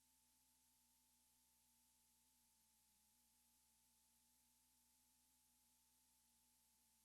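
Near silence: only a faint steady tone and hiss, with no sound from the scene.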